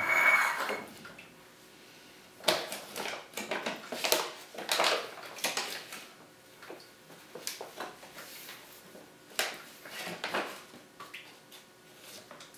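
Metal measuring cup scooping baking soda out of a resealable plastic bag: the bag rustling, scraping and light clinks in scattered bursts, loudest at the start and again a few seconds in.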